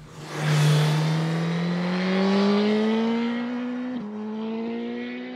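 Motorcycle engine accelerating, its note rising steadily, with a brief dip about four seconds in.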